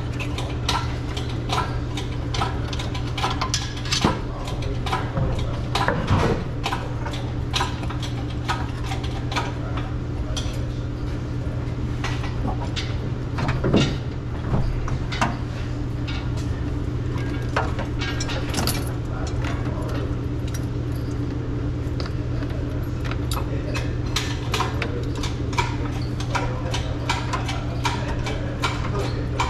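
Engine hoist lifting a small-block V8 out of a truck's engine bay: a quick run of metallic clicks and clinks from the hoist's jack and the lifting chain, with a few heavier knocks, over a steady low hum.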